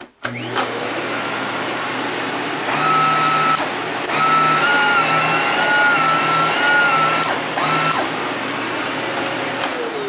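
Hoover Zen Whisper (SH40080) canister vacuum cleaner switched on, its motor spinning up to a steady whir that is not whisper quiet. A higher whine comes and goes in the middle. Near the end the motor is switched off and winds down.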